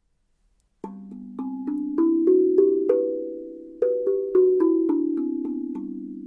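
Steel tongue drum, a GUDA Freezbee in the Equinox scale (G B C D E F# G B), struck with the fingertips. About a second in, eight notes are played one by one up the scale, about three a second; after a short pause, eight more run back down. Each note rings on under the next.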